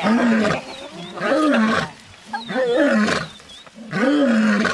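A lioness calling in a series of loud roars, four in a row about a second and a half apart, each rising and then falling in pitch.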